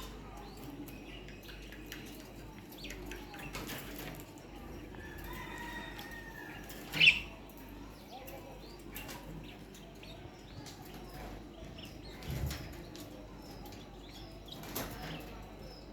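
Pet budgerigars chirping and chattering in short, scattered high calls, with bouts of wing flapping. A single loud, sharp sound about seven seconds in, and a low thump near the twelve-second mark.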